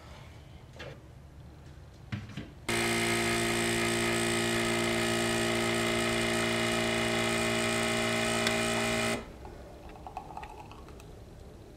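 Single-serve espresso machine's pump buzzing steadily for about six seconds as coffee pours into a mug, starting and stopping abruptly. A couple of faint clicks come before it.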